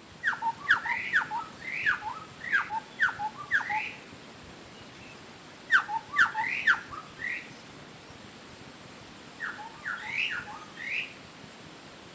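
Chestnut-backed scimitar babbler (cucak kopi) calling: three bursts of quick, sharp, loud whistled notes with pauses between them, over a faint steady high-pitched tone.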